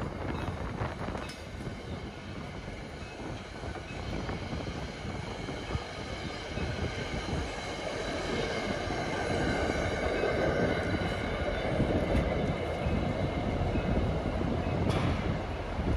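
NJ Transit passenger train with an EMD GP40PH-2 diesel locomotive (16-cylinder two-stroke engine) running, its engine and wheel noise growing steadily louder as it approaches.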